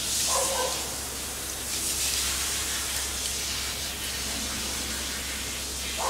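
Blue-and-gold macaw giving one short, faint call about half a second in, then a steady hiss in the background.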